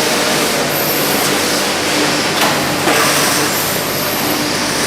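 Factory floor machinery running: a steady, loud mix of hum and hiss.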